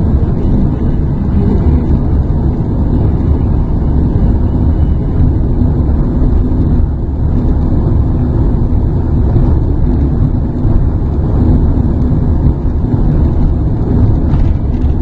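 Steady rumble of a car driving along at an even pace, a Renault Mégane: engine and tyre road noise, with a faint steady hum under it.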